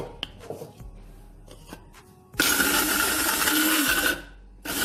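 Electric grinder with a steel jar pulsed to coarsely chop almonds and walnuts. A few light clicks as the jar is handled, then the motor runs with a whine for under two seconds, stops, and starts again near the end.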